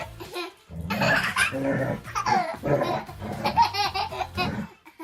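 High-pitched laughter, one hearty laugh after another in short repeated peals, with a brief pause about half a second in.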